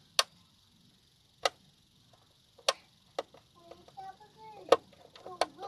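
Push button of an ACE-TECH PWM solar charge controller clicking as it is pressed again and again, about six sharp clicks roughly a second apart. Each press steps the controller to its next setting while it is being reprogrammed.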